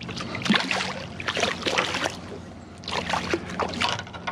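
Hooked snook thrashing at the surface beside the boat, splashing in three bursts as it is drawn in to hand.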